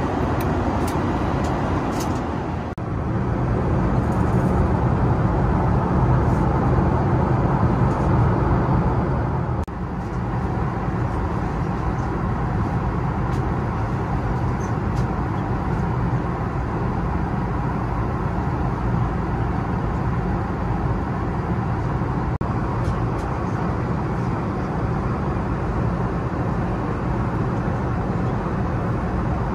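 Steady cabin noise of an Airbus A380: a constant rush of engines and airflow with a low hum underneath. It is a little louder between about 3 and 10 seconds in, with abrupt changes at both points.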